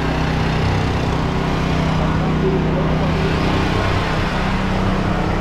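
A vehicle engine idling steadily: a low, even hum with no revving.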